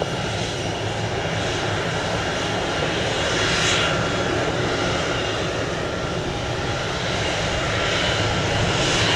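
Jet airliner engines running, a steady broad rumble with a faint steady whine that swells a little twice.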